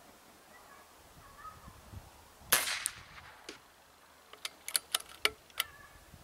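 Hatsan Nova Compact PCP air rifle in 5.5 mm firing a single shot: one sharp crack with a short tail, and a fainter snap a moment later. About a second and a half after the shot comes a quick run of sharp metallic clicks as the rifle's action is worked for the next pellet.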